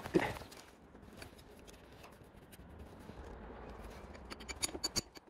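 Hand tools clicking and tapping on a scooter's handlebar, with one sharp knock just after the start and a quick cluster of metallic clicks near the end.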